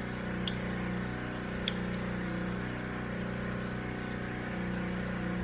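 A steady low hum, like a running motor or engine, holding level throughout, with two faint clicks about half a second and a second and a half in.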